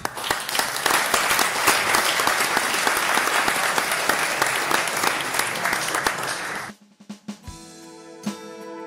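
Audience clapping, a dense steady applause that cuts off abruptly about seven seconds in. Soft music with plucked notes starts near the end.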